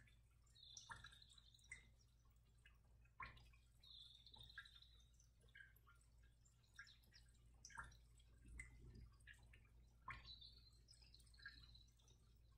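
Near silence: room tone with a low steady hum, a few faint scattered ticks and three brief, faint high chirps.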